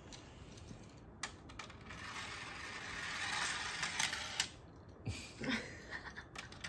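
Light plastic clicks and clatter of small plastic toy ducks being picked up and set onto the track of a duck stair-climbing slide toy, with a stretch of soft rustling in the middle.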